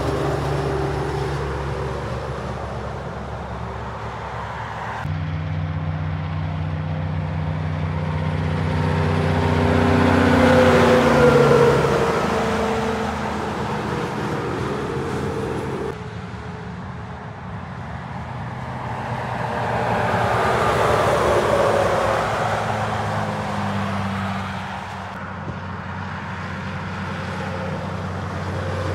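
Semi-trailer trucks passing on a motorway: engine drone and tyre noise swell to a peak and fade as each goes by, twice. The sound cuts abruptly from one pass-by to the next three times.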